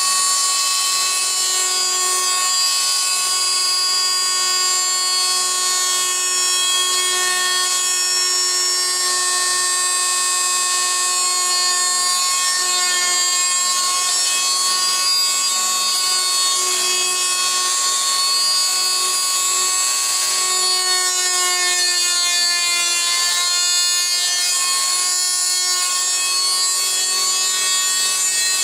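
Fein MultiMaster oscillating multi-tool running with a steady high-pitched whine while it cuts laminate in the corners of a miter track slot. The pitch sags briefly about three quarters of the way through as the blade loads up.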